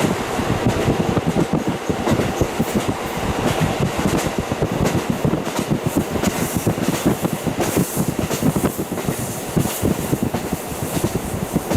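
KiHa 40 diesel railcar running along the line, heard through a fully open window: a steady rush of running noise and wind, with the wheels clattering in many quick knocks over the rails.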